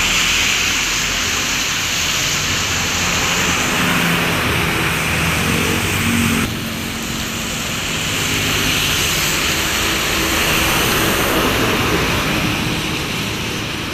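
Heavy rain falling, a steady hiss, while cars and buses drive past on the flooded road, their tyres spraying through standing water.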